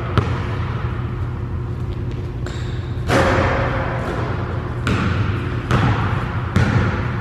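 Basketball bouncing on a hardwood gym floor, with a few separate bounces, the last ones in a dribbling rhythm about a second apart, echoing in the large gym over a steady low hum.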